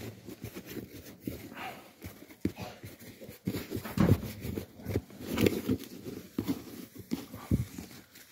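Irregular rustling and crunching of hands pressing and stirring potting mix with perlite around a plant's roots, in short, uneven scrapes.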